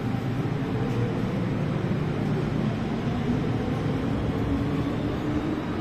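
MTR M-train pulling out of the station alongside the platform, a steady running rumble.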